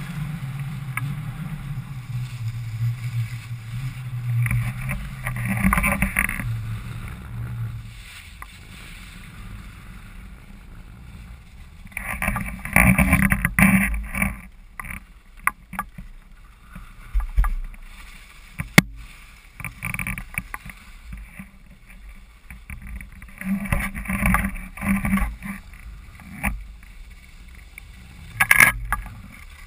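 Skis hissing and scraping over packed, groomed snow in several separate bursts as the skier turns, with a low rumble during the first several seconds.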